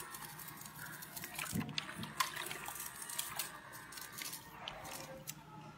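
Hand spray bottle of liquid cleaner being squeezed, several short spritzes of mist at uneven intervals.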